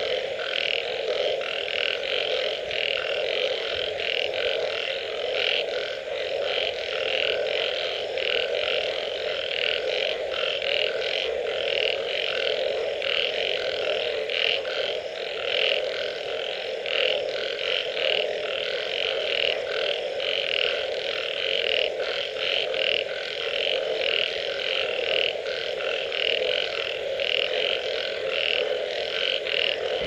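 Dense chorus of many frogs calling after rain: a steady low drone with rapid, overlapping higher croaks pulsing on top.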